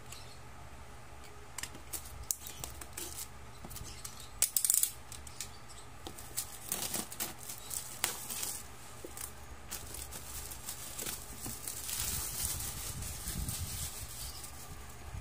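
Plastic shrink wrap on a cardboard box being slit with a utility knife and peeled off: irregular crinkling and crackling with sharp clicks, loudest about four and a half seconds in.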